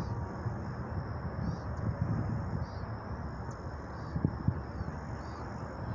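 Marsh ambience: a steady high insect trill with short faint chirps about once a second, over a low rumble of wind on the microphone. Two soft knocks come a little after four seconds in.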